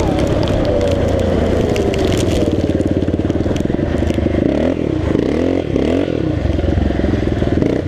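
Quad (ATV) engine running while riding. Its pitch sinks slowly, then dips and rises a few times around the middle as the throttle changes, with scattered crackles and clatter over it.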